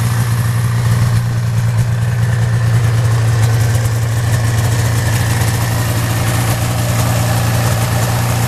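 Rebuilt 1987 Yamaha SRV 540 snowmobile's two-stroke twin engine idling at a steady speed.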